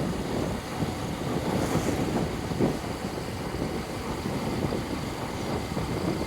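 Motorcycle running on the move, with steady wind and road noise on the microphone.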